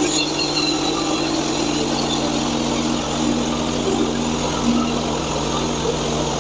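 Portable bandsaw mill's engine running steadily at one even pitch as the band blade saws through a frozen, knotty hard maple log.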